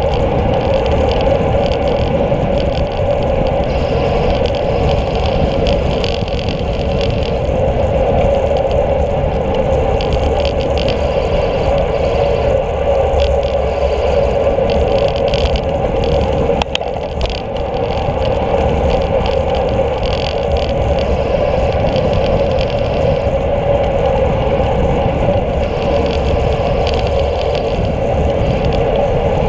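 Steady wind and tyre noise picked up by a handlebar-mounted camera on a road bike riding along an asphalt road.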